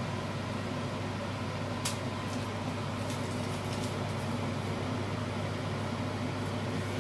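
Steady low hum of a kitchen range-hood fan. A sharp click about two seconds in is followed by a few fainter clicks, as a knife peels the charred skin off a fire-roasted eggplant.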